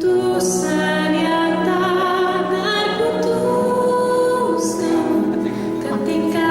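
A woman singing a slow, sustained melody over keyboard chords, starting suddenly and loudly right at the beginning.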